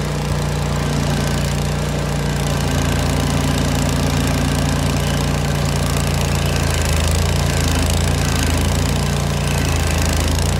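An old Vermeer stump grinder's engine running steadily and loudly.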